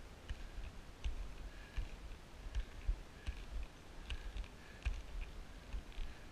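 Skiing through powder snow heard from a head-mounted action camera: irregular low thuds as the skier bounces over the snow, with scattered sharp clicks and ticks from the skis, poles and camera mount.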